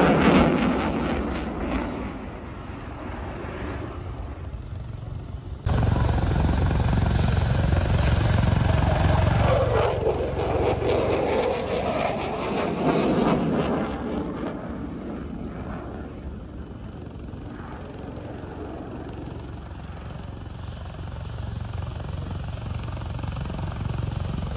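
Fighter jet engine noise from a display flying overhead: a broad, rumbling jet noise that jumps abruptly louder about five seconds in, swells with a falling-then-rising sweep as the jet passes, then fades.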